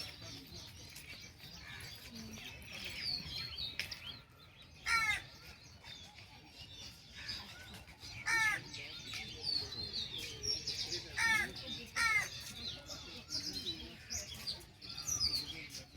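Birds calling: a short, harsh call repeated about five times, over continual high chirping of smaller birds.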